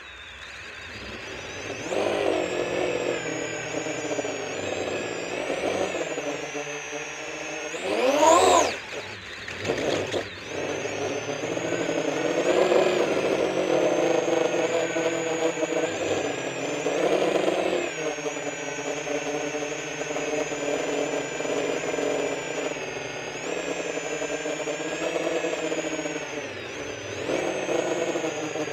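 The brushless motors and propellers of a 10-inch freestyle FPV quadcopter whining in flight, the pitch shifting with throttle. About eight seconds in there is a sharp punch that sweeps the pitch up and back down.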